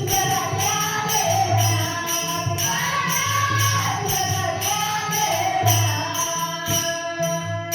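A woman singing a Marathi gaulan devotional song, with a steady beat of drum and jingling percussion.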